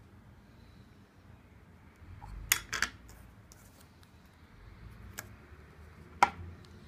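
Hard plastic doorbell parts being handled and set down on a tabletop: two quick clacks a few seconds in, a light tick, then another sharp clack near the end.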